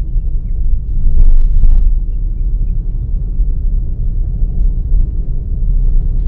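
Steady low rumble of a car driving, road and engine noise, with a brief louder rushing noise about a second in.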